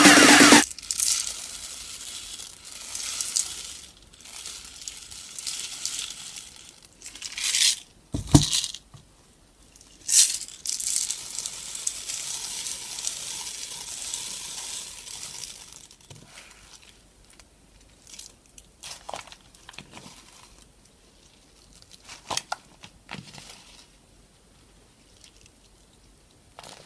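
Crunchy slime being squeezed and worked by hand: irregular bursts of crackling and crunching, with a dull thump about eight seconds in, then fainter, scattered crackles for the last ten seconds.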